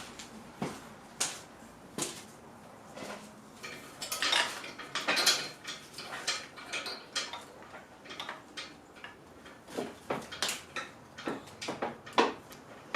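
Irregular metallic clicks, clinks and short clatters of hand tools and small metal engine parts being handled while the fuel rail line and injector rail are disconnected from a Toyota 2JZ engine.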